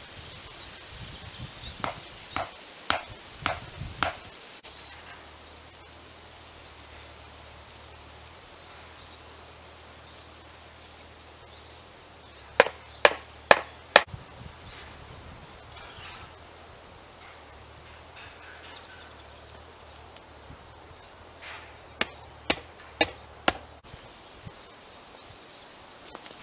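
Wooden marker stakes being driven into the ground with a hammer: three runs of four or five sharp knocks, about two a second, with pauses between the runs.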